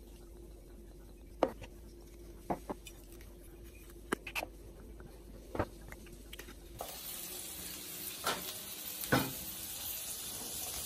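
A few light clinks and knocks of bottles and a glass bowl as oil and vinegar are poured. About seven seconds in, an even, steady sizzle of meat and sausages frying on the flat griddle plate of a gas grill, with a couple of knocks.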